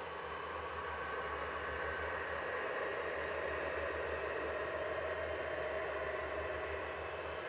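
Steady, even hiss with faint steady tones and a low hum underneath, growing slightly louder about two seconds in.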